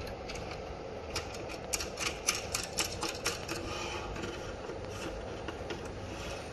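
Metal hold-down clamp being tightened on a CNC router table: a quick, irregular run of light metallic clicks and taps from the clamp, nut and star-shaped plate, thinning out after a few seconds, over a faint steady hum.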